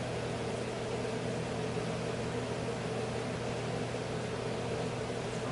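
Steady machine hum: a low droning tone with a higher hum above it and a faint hiss, not changing at all.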